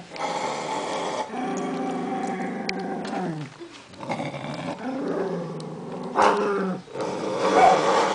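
Pinscher growling in long, low rumbles broken by short pauses, louder near the end: a warning growl as it guards its baby doll from a hand reaching toward it.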